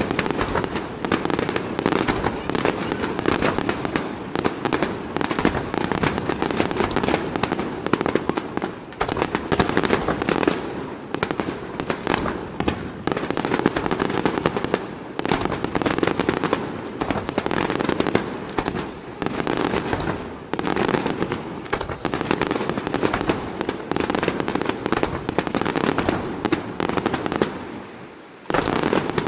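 Aerial fireworks display: shells exploding in quick, unbroken succession. The explosions ease off briefly near the end, then resume.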